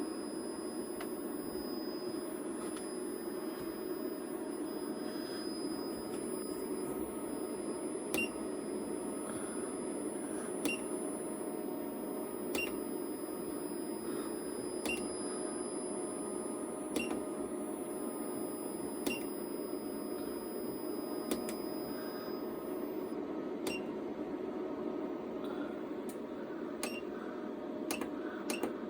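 PowMr 5.6 kW all-in-one solar hybrid inverter humming steadily, with short high whistling chirps about every two seconds that come closer together near the end. A faint high steady whine stops about two-thirds of the way through. The owner is not sure whether the whistling is a fault.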